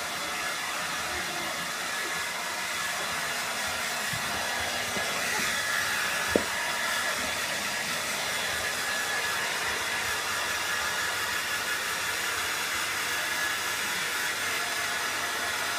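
Hand-held hair dryer running steadily, an even blowing noise with a faint high whine in it. One sharp click about six seconds in.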